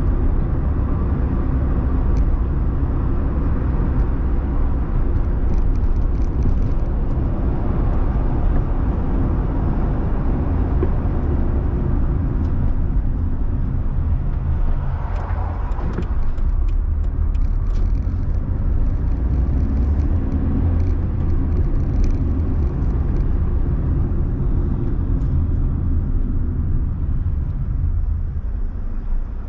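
Steady low rumble of a car's engine and tyres heard from inside the cabin while driving, with a brief swell of noise about halfway through.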